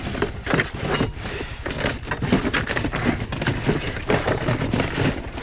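Rapid, irregular knocking and crackling as objects are shifted and pulled out by hand, over a steady low engine hum.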